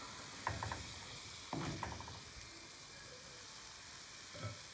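Curry fish and onions sizzling in oil in a frying pan. A spatula scrapes and clicks against the pan twice, about half a second and a second and a half in.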